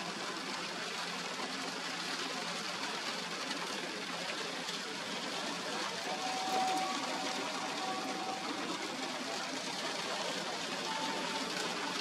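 Steady hiss of rain and wind, with a few short faint squeaks a little after the middle and near the end.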